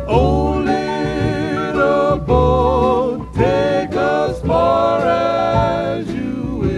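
Background music: several voices singing held, wavering notes in harmony over a bass accompaniment, the closing phrases of a song.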